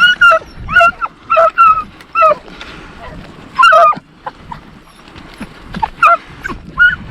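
Deer-hunting dogs yipping and whining in a run of short, high-pitched yelps, with one longer whine a little before the middle.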